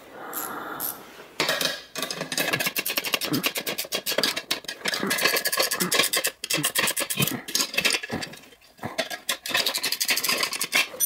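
Hand socket ratchet clicking in quick runs, tightening the nuts that bolt the halves of a two-piece ATV rim together, with short pauses between runs.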